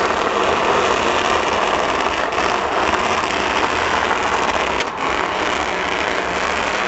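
Car engine held at high revs during a burnout, its rear tyres spinning and smoking on the track, making a loud, steady noise. The sound dips briefly about two and a half seconds in and again near five seconds.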